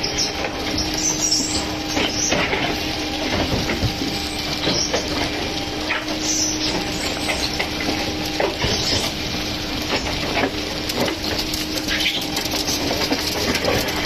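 Truck-mounted concrete mixer pump running with a steady hum and irregular knocks, as wet concrete is pumped out through the end hose onto a rebar-mesh slab.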